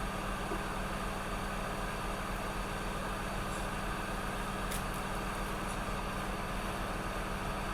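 Steady hiss and hum of a hot air rework station's blower, running without change while the shorted capacitor is desoldered from the MacBook Pro logic board.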